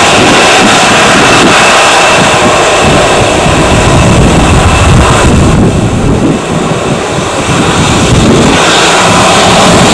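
Jet engines of an Airbus A320-214, its CFM56 turbofans, running loudly as the airliner departs, with wind buffeting the microphone.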